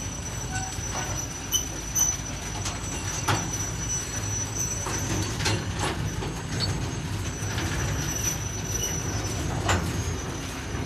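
Freight wagon rolling through a shunting yard: a steady low rumble with scattered clanks and knocks, over a thin high squeal held through most of it.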